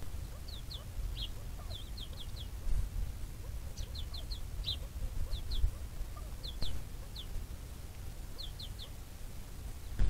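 Bird calling: short, high, falling chirps given singly or in quick runs of two to four, over a low background rumble.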